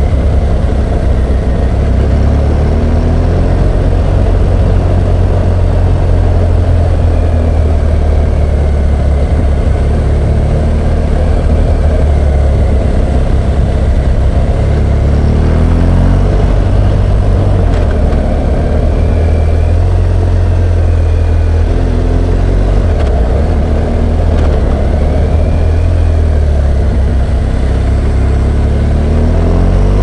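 BMW R1200GS Adventure's boxer twin engine running under way, a steady low drone whose pitch rises and falls a few times as the speed changes.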